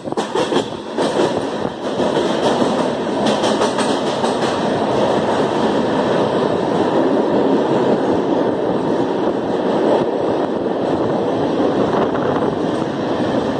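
Passenger train running through a railway tunnel: a dense, steady noise of wheels on rail, with rapid clicks in the first second. About two seconds in it grows louder as the train enters the tunnel, and then holds level.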